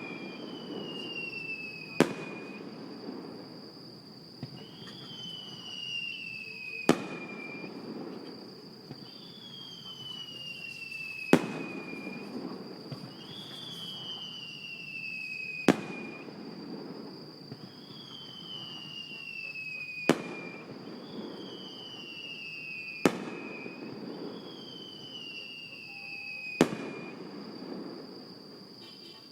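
Fireworks display: aerial shells bursting with sharp bangs about every four seconds, seven in all, each followed by a rumbling echo. Falling whistles sound between the bursts.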